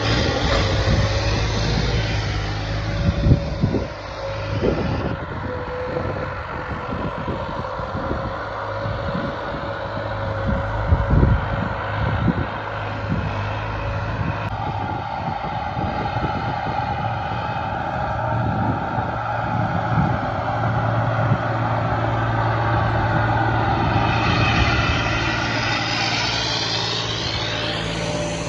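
Turbocharged tractor engine running steadily under load while pulling a disc harrow through tilled soil. Thuds and clanks from the harrow are heard a few seconds in and again around the middle.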